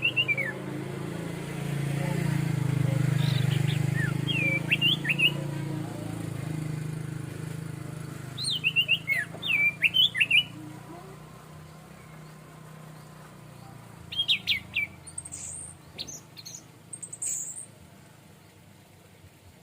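Orange-headed thrush singing: five bursts of quick whistled notes that glide up and down, a few seconds apart, with some very thin high notes near the end. A low steady hum runs underneath in the first half and fades out.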